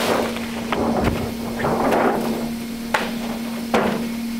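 Protective slip sheet being pulled out from a bent condenser coil: rustling and scraping in several pulls, then two sharp knocks near the end, over a steady low hum.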